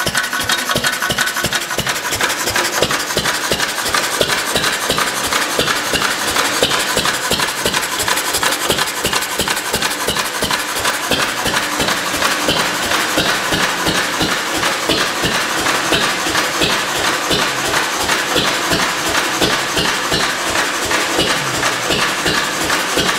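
Lister B-type single-cylinder, hopper-cooled stationary engine with big flywheels, running steadily with a rapid, even beat.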